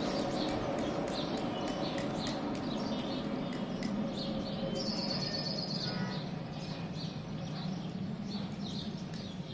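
Birds chirping repeatedly, with a rapid high trill lasting about a second midway, over a steady low rumble that slowly fades.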